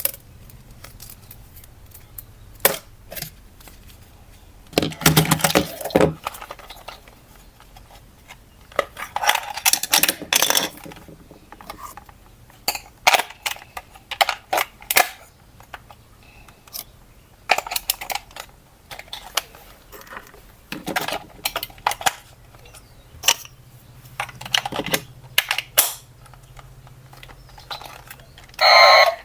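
Irregular clicks, taps and clatter of small hard objects being handled, in scattered bursts, with a louder rasping burst about a second long near the end.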